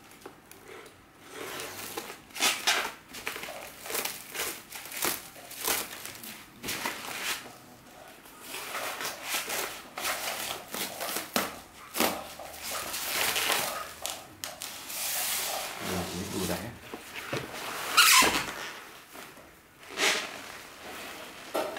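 Plastic wrapping on a parcel crinkling and tearing in repeated bursts as hands peel it away, with a utility knife slitting it near the end.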